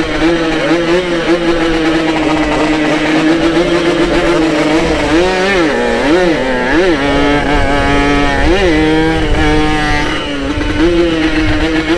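Yamaha RX-King's two-stroke single-cylinder engine running under way at a steady note. In the middle it is blipped in a string of quick revs, its pitch jumping up and falling back four or five times, before settling back to a steady note.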